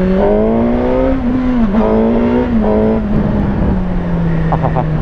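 A 2017 Suzuki GSX-R1000's inline-four engine under way. Its pitch climbs for about a second, dips briefly, holds, then falls steadily as the throttle eases and settles to a steady run. A few light ticks come near the end.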